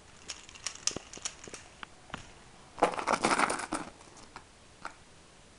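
Rustling and light handling clicks as plush toys are moved over a fleece blanket, with a louder burst of rustling about three seconds in.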